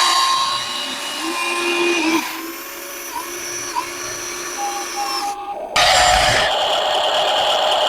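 Small electric motors and gearing of a Huina RC excavator whining as it works, with a break about five and a half seconds in before the whine picks up again, louder.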